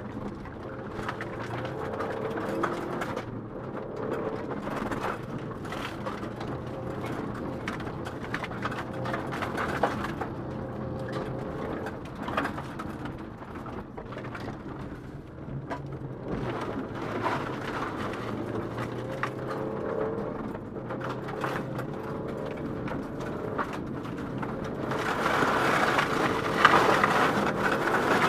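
Rally car engine heard from inside the cabin, rising and falling in pitch as it is driven hard through the gears, with many sharp knocks from gravel and bumps striking the car. Near the end a louder rush of gravel noise takes over.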